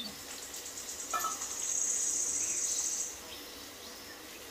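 An insect trilling, a high-pitched pulsing song that stops about three seconds in.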